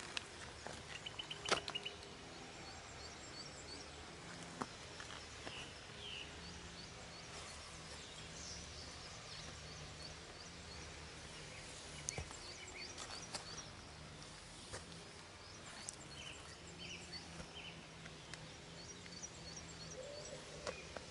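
Outdoor ambience of small birds chirping and singing in short repeated phrases over a steady low background noise, with a few sharp clicks. Near the end a low hooting call begins.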